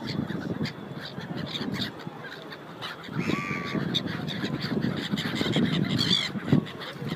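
A flock of waterfowl honking and calling, many calls overlapping.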